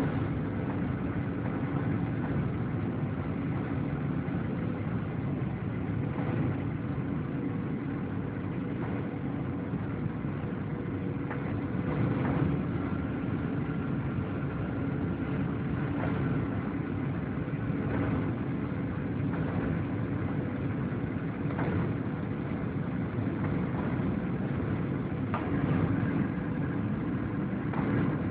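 Cabin noise inside a Boeing 737-800 on final approach: a steady rush of airflow and CFM56 engine noise with a faint steady hum, and a few faint clicks.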